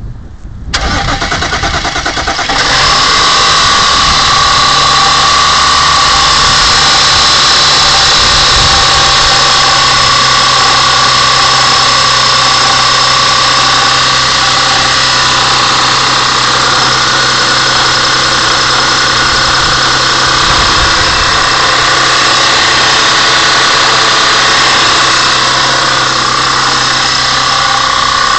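Audi A6 4F 3.2 FSI V6 engine. It comes up about a second in and settles into a steady idle a couple of seconds later, then holds steady.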